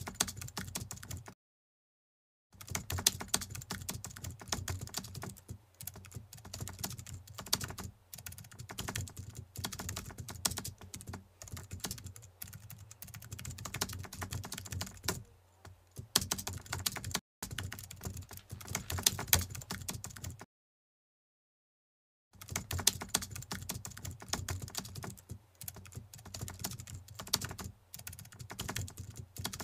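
Typing sound effect: a fast, continuous run of key clicks, broken twice by a second or two of dead silence, once soon after the start and once about two-thirds of the way through.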